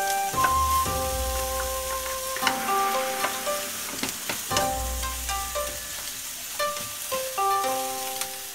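Rice and onions sizzling in a hot frying pan, stirred with a spatula that scrapes the pan every second or so, over background music.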